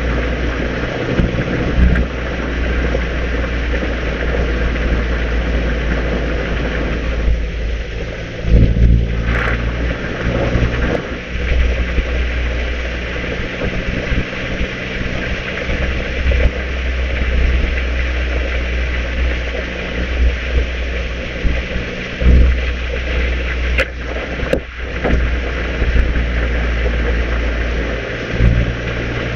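Mazda MX-5 990S's 1.5-litre four-cylinder engine pulling the car along, heard from the driver's seat with wind and road noise. The engine note rises and falls a few times as the car drives.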